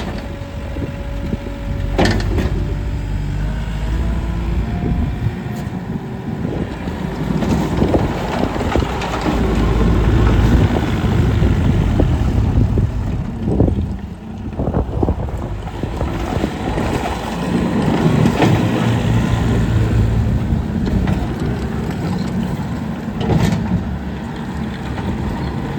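Case TV380 skid steer loader's diesel engine running, its pitch rising and falling as it is revved and worked. A few sharp knocks come through, about two seconds in, near the middle and near the end.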